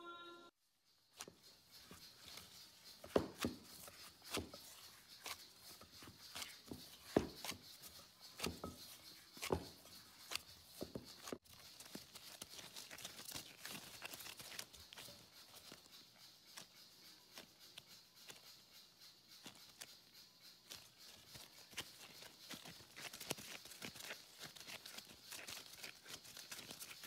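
Gloved hands mixing and kneading flour dough in a glass bowl: rubbing and squishing noises with irregular knocks, a few louder ones in the first ten seconds.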